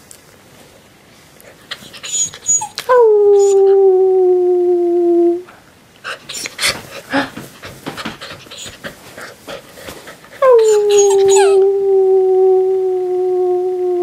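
Alaskan Malamute puppy howling: two long howls, each a few seconds long, that dip in pitch at the start and then hold level. Short scuffling noises fall between them.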